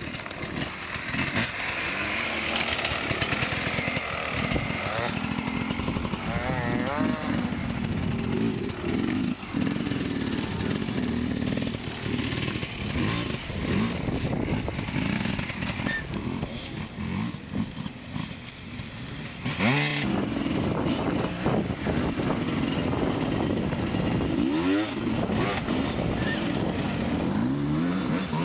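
Enduro dirt bike engines revving hard on a steep, rocky hill climb, the pitch rising and falling with each burst of throttle, loudest in a surge about two-thirds of the way through, with spectators' voices underneath.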